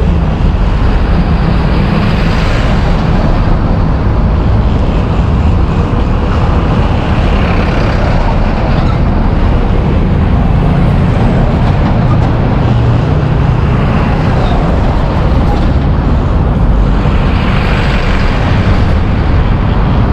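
Buses and other road traffic passing by, a loud steady rumble that swells as vehicles go past, about three times.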